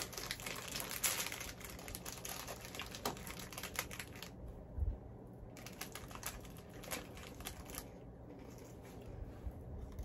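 Plastic snack wrapper crinkling as it is torn open and handled, dense for the first few seconds, then sporadic rustles and small clicks.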